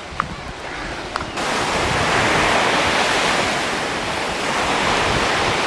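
Surf washing onto a sandy beach, a steady wash of noise that starts abruptly about a second and a half in; before it, a quieter stretch with a few small clicks.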